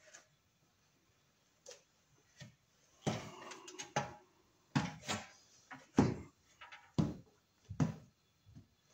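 Irregular knocks and clunks of things being handled: a short cluster about three seconds in, then single sharp knocks roughly a second apart.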